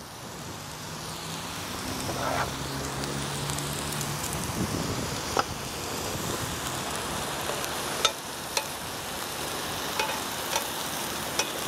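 Pork tenderloin and asparagus sizzling steadily in a hot cast iron grill pan, the pork fat frying out, with a few sharp metal clicks of tongs against the pan in the second half.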